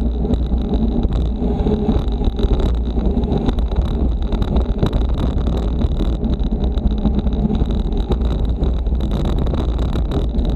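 Wind rushing over a bicycle-mounted action camera's microphone at riding speed, mixed with steady tyre and road rumble and small irregular knocks.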